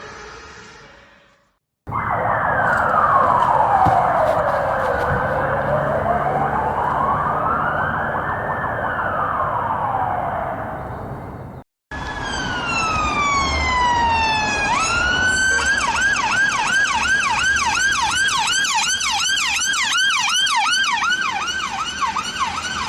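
Ambulance sirens from separate recordings. After the fading tail of one siren and a brief break, a slow wail sweeps down, up and down again over about ten seconds. After another break, a siren tone falls once and then switches to a fast yelp of quick rising chirps, about three to four a second.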